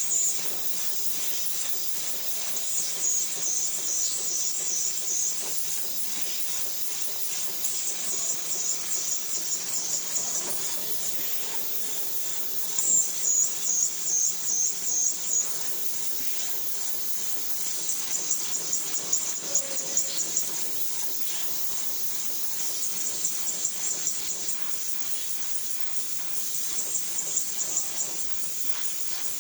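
Machine forming corrugated aluminium fin strip for car air-conditioner heat exchangers, running with a continuous high-pitched hiss and stretches of fast, even pulsing.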